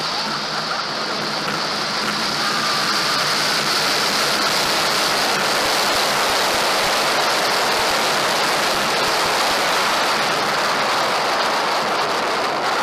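Steady loud rush of wind over the microphone on a high-speed roller coaster ride.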